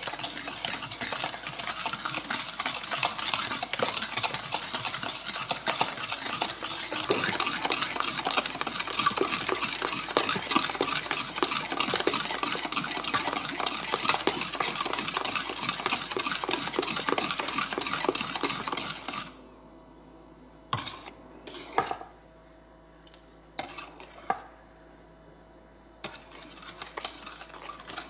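A utensil stirring rapidly in a mixing bowl, with a steady scraping clatter against the bowl. It stops about two-thirds of the way through, leaving a few single knocks, and the stirring starts again near the end.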